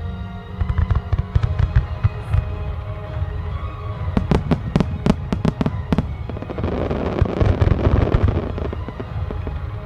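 Aerial firework shells bursting in quick sharp reports, with a dense spell of fine crackling a little past the middle, over music played with the show.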